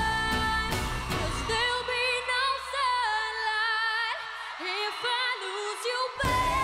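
A young woman's solo voice sings a pop ballad live with a band, with long held notes and wavering runs with vibrato. About a second and a half in, the drums and bass drop out and leave the voice over light backing. The full band comes back in near the end.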